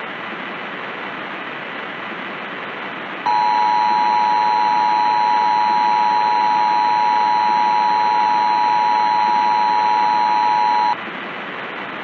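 Emergency Broadcast System two-tone attention signal, two steady tones (853 and 960 Hz) sounding together, coming in about three seconds in and cutting off sharply after about seven and a half seconds. Under it and on either side runs a steady bed of static hiss.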